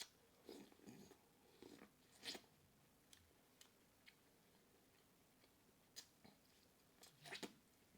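Close-miked eating sounds: chewing and wet lip smacking in short scattered bursts with pauses between, loudest about two seconds in and again near the end.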